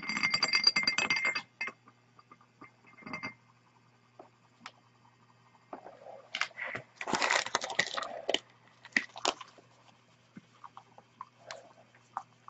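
Magnetic stirrer spinning a stir bar in a glass measuring cup of isopropyl alcohol and copper sulfate powder: the bar rattles and clinks against the glass in irregular clicks. The rattling is densest in the first second and a half and again around seven seconds in, over a faint steady motor hum.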